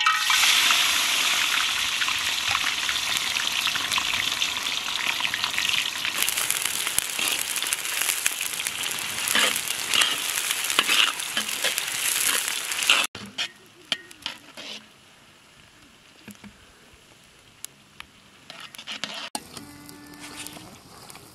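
Sliced onions frying and sizzling in a large black cooking pot over a wood fire as a metal ladle stirs them. About thirteen seconds in, the sizzle cuts off abruptly, leaving a much quieter stretch with a few small clicks.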